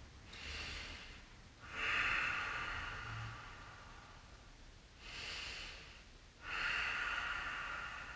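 A man breathing slowly and audibly while holding a yoga side stretch: two breath cycles, each a short, fainter breath followed by a longer, louder breath with a throaty hiss.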